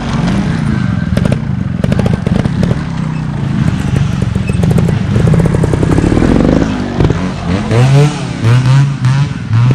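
Trials motorcycle engine revving in first gear as the front wheel is lifted on the throttle alone. Near the end come about four short, sharp blips of the throttle.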